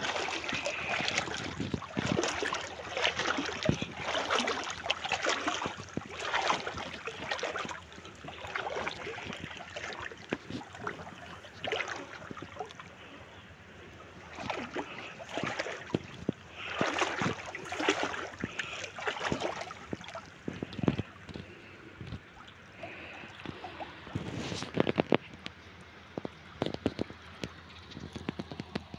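Water in a shallow ditch sloshing and splashing in irregular bursts, about one a second, with a few quieter pauses.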